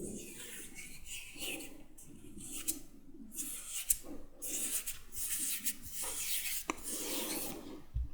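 Brush bristles rubbing and stroking close to the microphone in repeated strokes about a second apart, with a few short clicks between them.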